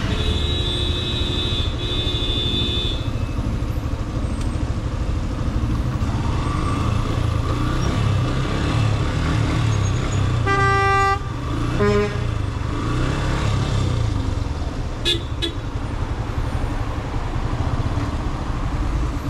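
Motorcycle engine running with a low rumble in slow traffic, while vehicle horns honk: two short horn notes at the start, a longer blast about ten and a half seconds in, and a brief toot about a second after it.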